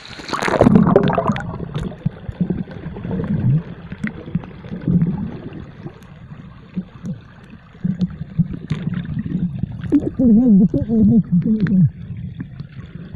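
A splash as the camera goes under the river surface, then muffled underwater gurgling and bubbling with scattered small clicks. About ten seconds in, a wavering, pitched gurgle lasts roughly two seconds.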